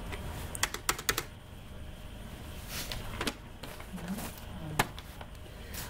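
Computer keyboard keystrokes: a quick run of clicks about a second in, then a few single key presses spaced out.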